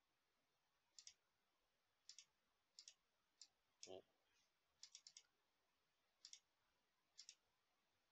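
Faint computer mouse button clicks, most in quick pairs, coming about once a second.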